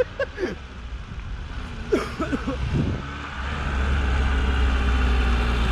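Lada Zhiguli car engine running with a low, steady drone that grows louder about three seconds in. A few short voice sounds come before it.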